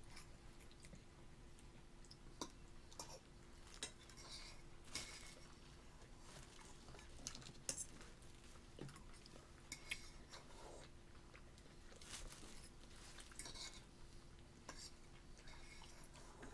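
Faint, scattered clicks and clinks of dishes and cutlery, over a steady faint hum.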